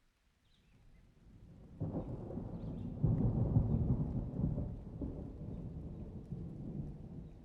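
Thunder rumbling in a rainstorm: a low rumble builds from about a second in, breaks louder near two seconds, peaks in the middle and slowly dies away. A few faint bird chirps come at the start.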